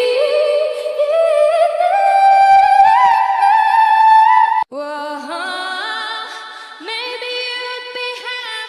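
Music with a singing voice: a held line climbs steadily in pitch for about four seconds and is cut off abruptly, then a different sung passage starts.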